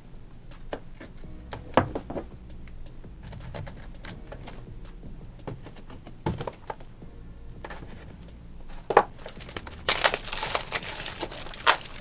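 A small blade scratching and slitting the clear plastic shrink wrap on a cardboard box, with scattered clicks and scrapes. About ten seconds in, the plastic wrap crinkles loudly as it is pulled off.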